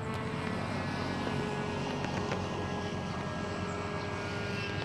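Motor and propeller of a small handmade foam RC airplane in flight overhead, a steady, even drone.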